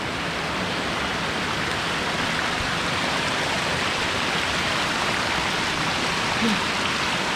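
Small stream of water cascading down a rocky slope in little falls, a steady rushing splash.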